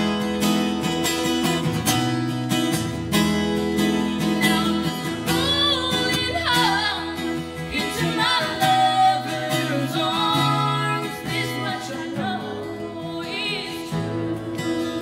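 Country ballad with acoustic guitar and a singing voice, the voice sliding between held notes.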